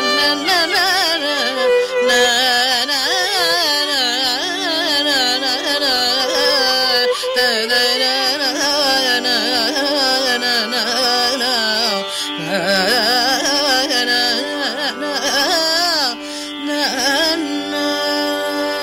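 A woman singing Carnatic classical music in raga Sankarabharanam, her notes wavering and sliding through heavy ornaments over a steady tambura drone.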